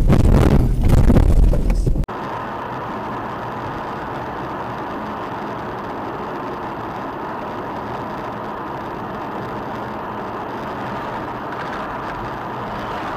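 Loud rumbling and knocking from inside a car as it leaves a snowy road in a crash. It cuts off abruptly after about two seconds and gives way to steady road and engine noise heard from inside a moving car.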